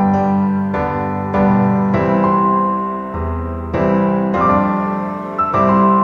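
Background piano music: chords struck one after another, each ringing on under the next.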